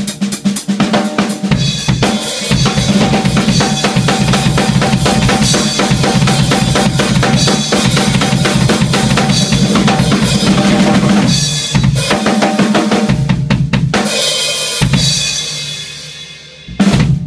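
Solo drum kit played freely with no other instruments: dense, fast patterns of kick drum, snare and cymbals, broken by a couple of short pauses. Near the end a cymbal rings down, followed by one last loud hit.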